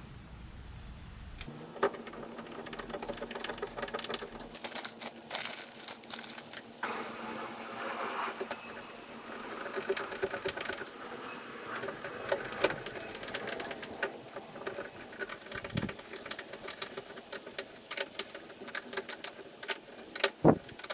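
Number 10 wood screws being driven by hand with a screwdriver through a caster wheel's steel mounting plate into plywood: a long run of small irregular clicks and creaks.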